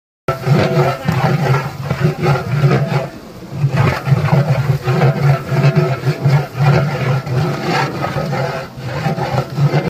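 Long iron spatula scraping and stirring onions frying in oil in a large aluminium cooking pot: loud, repeated metal-on-metal scraping strokes against the pot.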